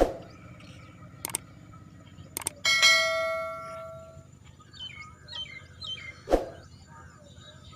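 A single bell-like metallic ring, struck once and fading over about a second and a half, after two sharp clicks; birds chirp afterwards and there is another sharp knock near the end.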